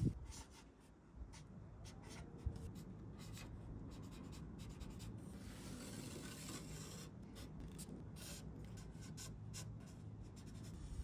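Marker pen drawing lines on a bare aluminium sheet: a faint run of short scratchy strokes of the tip on the metal.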